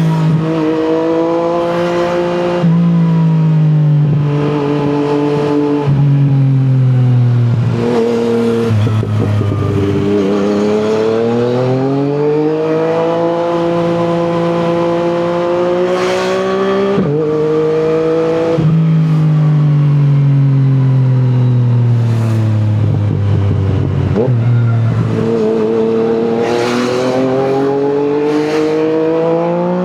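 Yamaha MT-09's inline-three engine through an Akrapovic exhaust, ridden through the gears. The engine note rises under throttle and falls away over several seconds at a time, with sudden steps in pitch at the gear changes.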